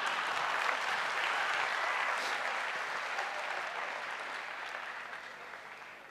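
A large hall audience applauding, the clapping slowly fading away over several seconds.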